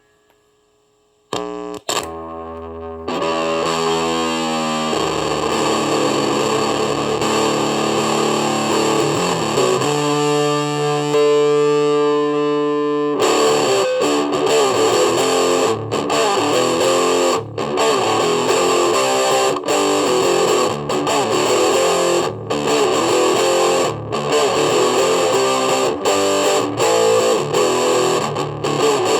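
Electric guitar played through distortion and effects: a chord struck and left to ring, notes gliding in pitch, and a long held note. About halfway through it breaks into a dense, distorted riff.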